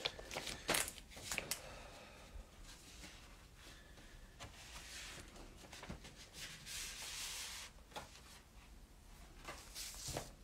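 An LP record sleeve and packaging being handled: a few sharp taps and clicks in the first second and a half, then soft paper and card rustling.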